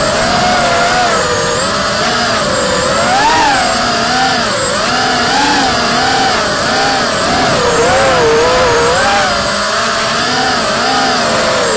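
Racing quadcopter's Emax RS2205 2300KV brushless motors spinning three-blade 5045 props: a loud buzzing whine made of several close pitches that rise and fall continually with the throttle.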